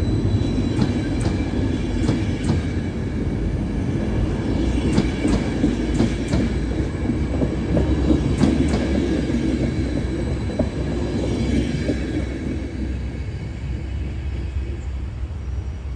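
Intercity passenger coaches rolling past, with a steady rumble and scattered sharp clicks of wheels over rail joints. The sound fades as the last coach goes by, about three-quarters of the way through.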